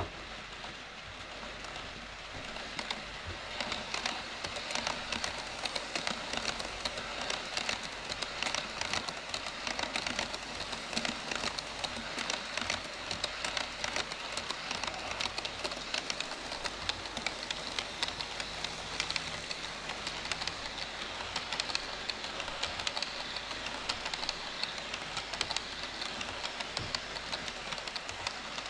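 HO-scale model trains (a container freight train and an E5 Shinkansen model) running on KATO Unitrack: a steady rattling hiss of small metal wheels rolling on the rails, full of fine rapid clicks from the rail joints. It grows louder about three seconds in as the freight train comes near.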